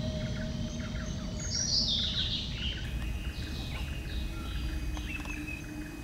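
Wild birds chirping and singing, with a bright descending warble about two seconds in, over a low background rumble.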